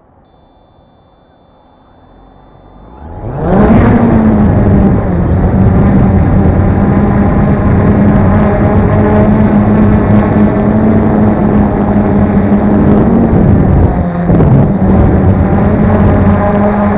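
Multirotor drone's motors spinning up about three seconds in and running loudly as it lifts off and climbs, a steady propeller hum with a brief dip in pitch and level near the end. Before the spin-up there is a faint high electronic tone lasting a couple of seconds.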